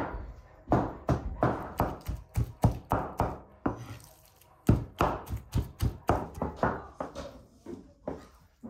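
A meat cleaver chopping raw liver on a wooden cutting board: a quick run of chops, about three a second, with a pause of about a second midway, then more chopping that grows softer near the end.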